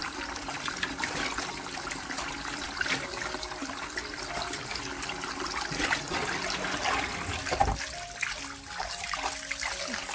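Tap water running into a glass bowl of raw chicken drumsticks while gloved hands rub and swish them, with steady splashing in the bowl.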